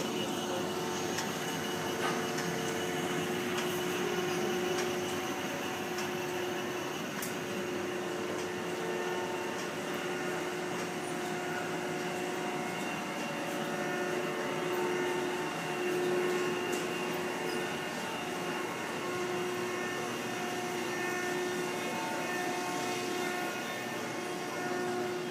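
Steady hum of running pressroom machinery: a low drone tone with a few higher steady tones over an even noise bed, with an occasional faint click.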